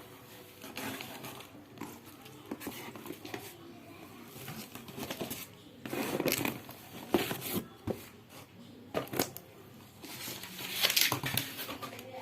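A shipping parcel being opened by hand: irregular rustling, crinkling and tearing of packaging with occasional knocks, louder in bursts partway through and near the end.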